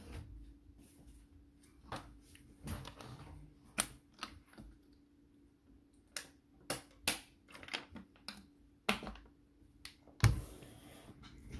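Irregular clicks, taps and knocks of things being handled close to the microphone, with a louder bump about ten seconds in, over a faint steady hum.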